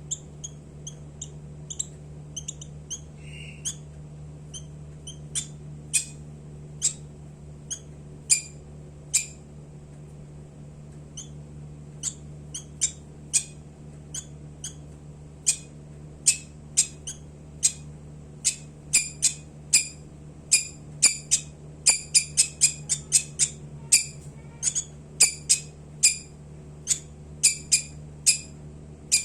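Lovebird giving short, sharp high-pitched chirps, spaced out at first and then coming faster and in quick clusters through the second half. A steady low hum runs underneath.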